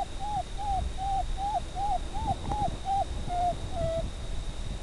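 Predator call sounding a repeated distress cry to lure a coyote, about three notes a second, each note rising then falling. The cries stop about four seconds in.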